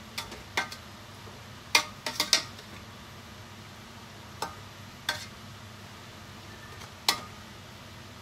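Metal spoon clinking and scraping against a stainless steel pot while stirring noodles: about ten short, ringing knocks at irregular intervals, bunched around two seconds in, with a sharp one near the end.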